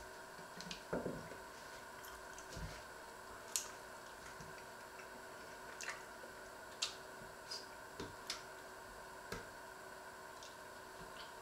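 About ten light, scattered clicks and taps of a kitchen knife and sausage slices on a wooden cutting board as the knife is set down and the slices are pushed into place, over a faint steady hum.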